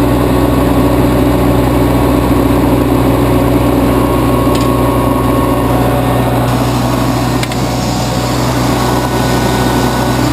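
Propane-fuelled engine of a Pelsue manhole generator/air compressor running steadily at a constant speed.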